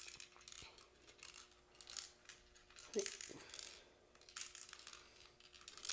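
Cubix Tube maze puzzle being handled and tipped, giving scattered light clicks and rattles of small plastic pieces and balls.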